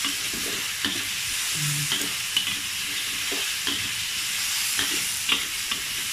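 Chicken and carrot pieces sizzling in oil in a wok, with a steady frying hiss, while a metal spatula scrapes and taps against the wok in irregular strokes.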